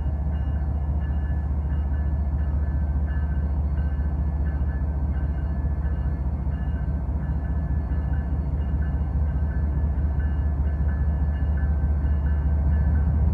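Diesel freight locomotives working hard to pull a 120-car train up a grade, a steady low engine drone slowly growing louder, with faint high tones pulsing about twice a second. The wheels are slipping under the load.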